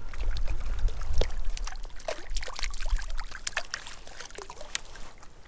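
Water splashing and trickling in quick, irregular splashes: a hooked Arctic grayling thrashing at the lake surface as it is played in. The splashing fades toward the end.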